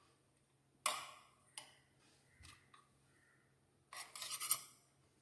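Kitchen dishes and utensils being handled while steamed idiyappam is moved into a casserole: a sharp clink about a second in, a lighter knock soon after, then a second or so of rattling, scraping clatter near the end.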